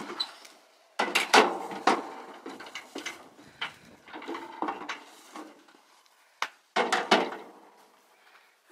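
Slatted metal livestock-trailer gate being unlatched and swung open: a run of clanks and rattles, the loudest about a second in and again around seven seconds.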